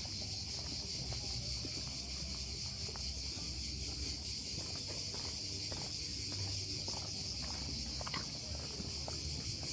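A steady, high insect chorus fills the woods without a break, with faint footsteps on the path beneath it.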